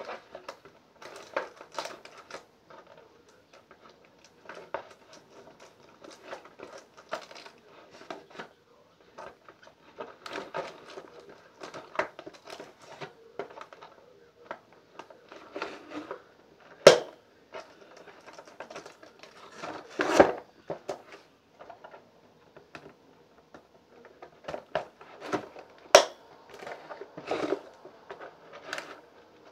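Cardboard box and plastic packaging of a toy horse set rustling and crinkling as it is handled and opened, with a few sharp clicks standing out in the second half.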